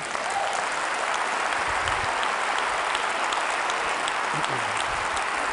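Large audience in a packed hall applauding steadily, many hands clapping at once.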